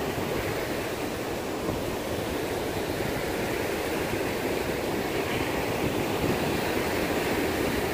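Sea surf washing up over a sandy beach: a steady rushing noise with no single wave break standing out.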